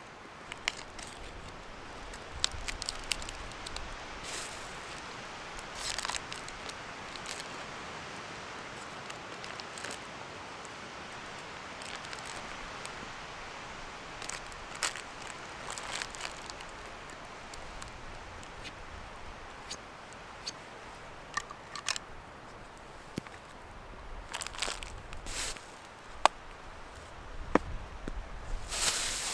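Wood fire burning in a Dakota fire pit, crackling with scattered sharp snaps over a steady hiss, with some close handling knocks, louder near the end.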